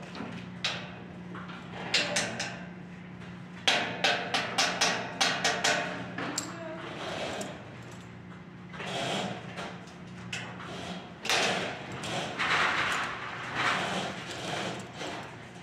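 Light-gauge steel stud framing being worked by hand overhead: sharp metallic clicks, with a quick run of about five a second a few seconds in, then longer scrapes and knocks of the steel track and studs.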